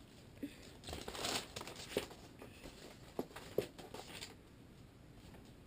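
Light crinkling and rustling of packaging, with a few small scattered clicks and taps of parts being handled while a sight is got out to fit to an airsoft rifle.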